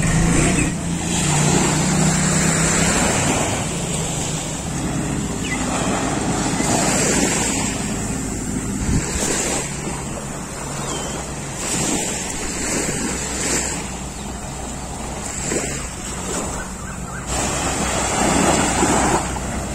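Small waves washing onto a sandy beach in repeated swells, with wind buffeting the microphone. A low steady drone runs underneath.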